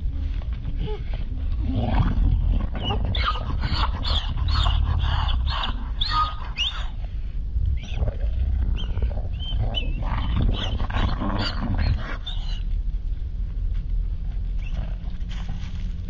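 Coyotes fighting over food: snarls and many short, high-pitched yelping squeals that slide in pitch, in two bouts of a few seconds each with a short lull between them, over a steady low rumble.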